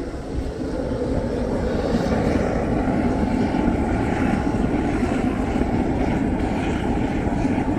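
Gas-fired melting furnace burner running with forced air, a steady roar.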